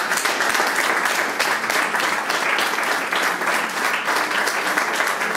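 Small audience applauding steadily: dense, even clapping that starts just before and continues unbroken.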